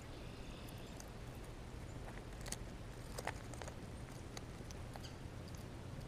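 Quiet outdoor ambience with a faint bird call in the first second, then a handful of small, sharp clicks and ticks scattered through the middle.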